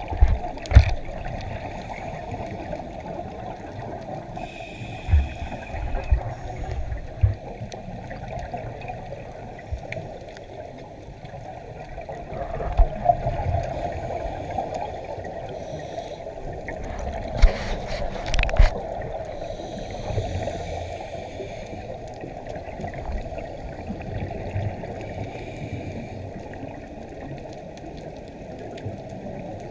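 Underwater sound heard through a GoPro's waterproof housing: a steady muffled water hiss with scattered low thumps and knocks. It is broken twice by louder bursts of scuba divers' exhaled bubbles, once about five seconds in and again a little past the middle.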